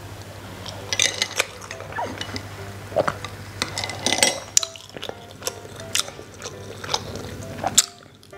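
Eating sounds of biting into and chewing a rice ball: a run of short, irregular wet mouth clicks and smacks.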